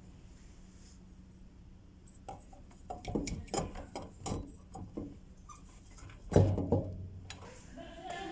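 A series of light clicks and knocks, with one heavier clunk a little past six seconds, as the new fuel pump assembly is handled and fitted into the car's fuel tank.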